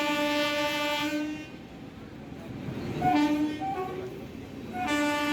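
Locomotive air horn sounding in blasts: a long steady blast that stops about a second and a half in, a shorter blast around three seconds, and another long blast starting near the end.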